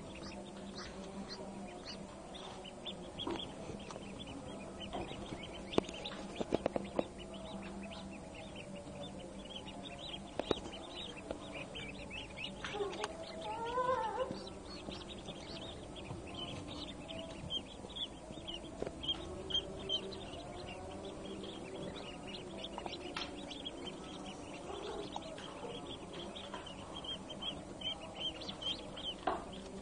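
Newly hatched ducklings peeping constantly, many short high chirps overlapping, with one louder, lower call about 13 seconds in. A steady low hum runs underneath.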